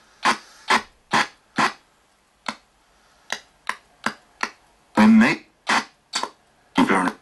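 RTC ghost box sweeping through radio stations: a rapid string of short chopped bursts of broadcast audio, about two to three a second, each a snatch of voice or music cut off by the scan. Two slightly longer fragments come through near the end.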